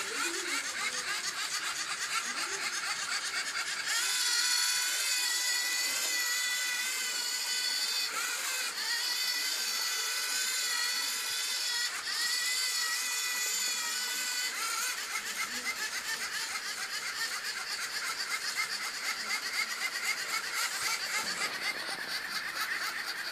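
Geared servo motors of a LEGO Mindstorms NXT line-following robot whining as it drives along a line, the pitch wavering up and down as the motors speed up and slow to steer. The whine is louder from about four seconds in until about fifteen seconds in.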